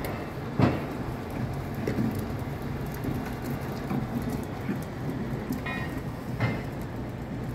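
Heavy mobile crane's diesel engine running steadily, with a sharp knock about half a second in and another near the end.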